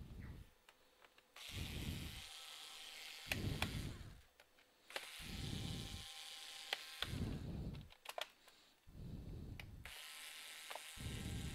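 A small motor running in three bursts of two to three seconds each, with clicks and light knocks between them.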